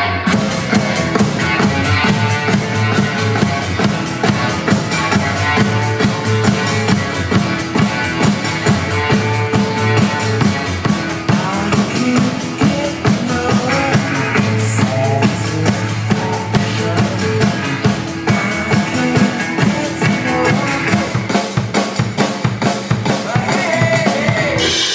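A drum kit played with a steady beat, snare and bass drum, over music with other pitched instruments.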